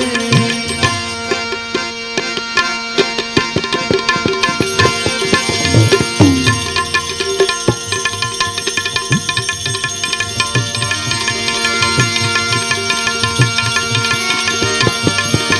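Instrumental interlude of a Gujarati devotional bhajan: tabla playing a busy rhythm over sustained held notes from melodic accompaniment. About six seconds in, one bass-drum stroke slides down in pitch.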